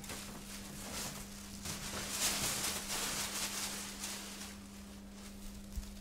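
A low steady hum under a rushing, hissing noise that swells in the middle, then a single light knock near the end, as a plastic bottle of bubble bath is set down on the bath's rim.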